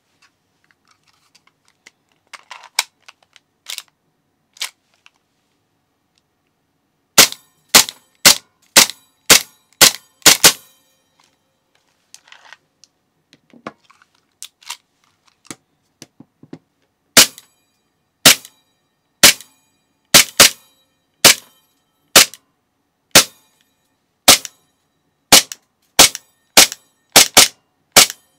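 Gas blowback airsoft pistol firing: sharp single shots, each with the crack of the slide cycling. After a few light clicks comes a quick string of about seven shots, roughly two a second. After a pause and some small clicks comes a longer run of shots about a second apart, coming faster near the end.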